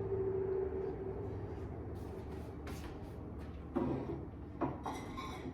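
Kitchen handling sounds over a steady low hum: two sharp knocks about four seconds in, then a brief rattling clatter, as of a muffin pan or dishes being set down and moved.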